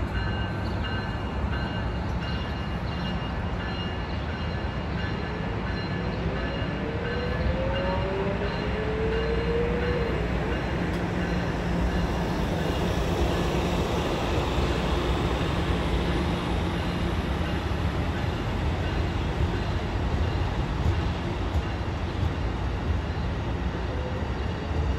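Amtrak Pacific Surfliner passenger train pulling slowly out of the station: a steady low diesel rumble with the cars rolling, growing a little louder about halfway. A few brief rising whines come from the train about a third of the way in.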